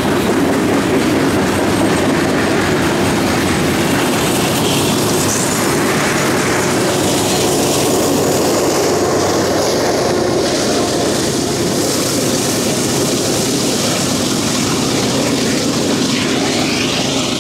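Freight train of coal hopper cars rolling past, with a steady rhythmic clickety-clack of wheels over the rail joints and some wheel squeal. The Union Pacific diesel locomotive at the tail of the train passes about halfway through.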